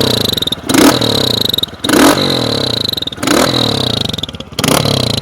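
Motorcycle engine through an ML Competition aftermarket exhaust, revved in four sharp throttle blips, each rising and then falling back toward idle. The exhaust note is really loud.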